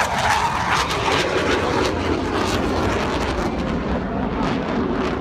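Aircraft engine roar from a plane flying a display maneuver overhead, loud and steady throughout.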